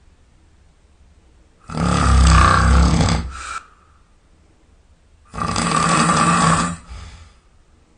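A man snoring loudly in his sleep: two long snores about four seconds apart, each lasting about a second and a half, with quiet breathing pauses between them.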